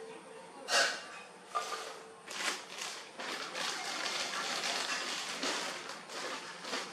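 Plastic diaper package crinkling and rustling as a diaper is pulled out of it: one short loud rustle about a second in, then steady crinkling from about two seconds on.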